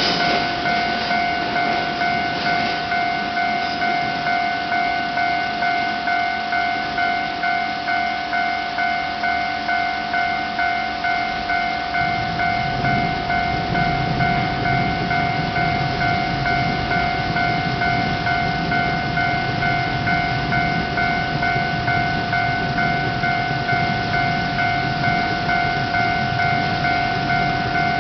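Japanese railway level-crossing alarm ringing its evenly repeating electronic warning tone. About halfway through, a low rumble of a train drawing near joins it.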